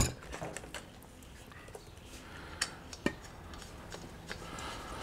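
Light handling noise of a compressor hose being threaded onto an expansion tank's air valve stem: a sharp click as it begins, then a few faint scattered clicks and ticks.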